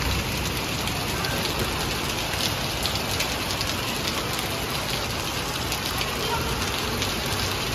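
A heavy hailstorm: many hailstones striking a concrete terrace and plastic chairs and tables in a steady, dense clatter of small ticks.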